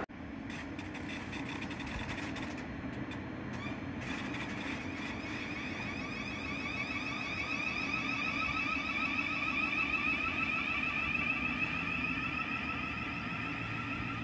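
Thameslink Class 700 electric multiple unit running on the line, its traction equipment giving a steady high whine over a low rumble that grows a little louder until about ten seconds in.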